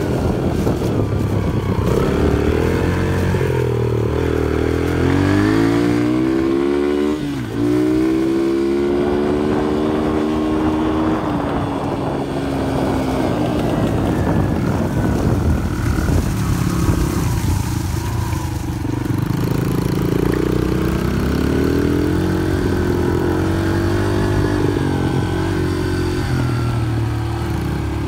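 Small dirt bike engine running and revving, its pitch rising and falling again and again as the throttle is opened and closed.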